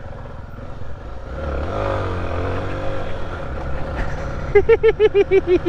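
Single-cylinder 250 cc trail motorcycle engine revved hard, its pitch dipping and then climbing, as the rider accelerates to throw mud on the bike behind. From about four and a half seconds in, a person laughs in a rapid ha-ha-ha.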